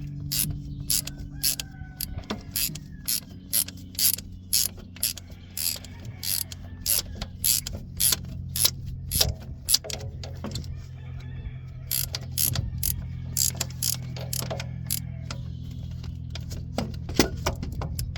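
Hand ratchet wrench clicking as it backs out a long starter mounting bolt, a click or two each second with a short pause past the middle. A steady low hum runs underneath.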